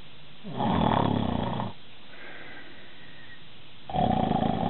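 A man snoring twice, each snore about a second long and rattling, a few seconds apart.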